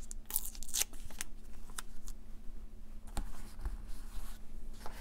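Paper handling: crackles and rustles of a decorative tape strip being peeled off its white backing card and pressed onto a journal page, several small crackles close together in the first second, then fewer and more spaced.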